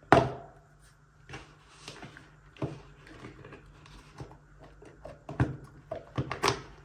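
Tarot card decks and a cardboard deck box handled on a table: a sharp knock as the box is set down at the start, then scattered light taps and short rustles of the cards being picked up and moved.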